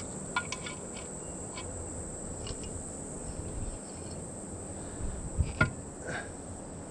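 Insects chirring in one steady high-pitched note, with a few light clicks and knocks of parts being handled, the loudest about five and a half seconds in.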